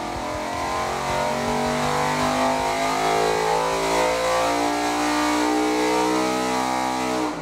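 Ford Coyote 5.0-litre DOHC V8 on an engine dyno making a full-throttle power pull, its pitch rising steadily as the revs climb past 7,000 rpm toward 8,000. The sound cuts off suddenly near the end.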